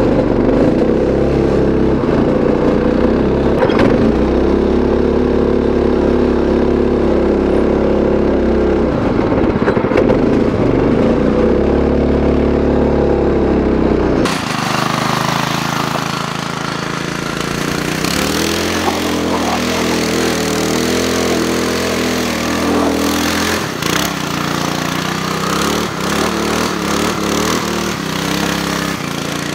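Predator 212cc single-cylinder go kart engine running under way, its revs rising and falling as the kart is driven. About halfway through the sound switches abruptly to the same engine heard from farther off, with more hiss over it.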